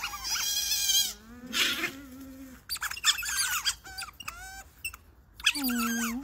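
A group of otters making a chorus of high-pitched squeaks and chirps, with a couple of lower, longer drawn-out calls mixed in: the calls of otters begging for food.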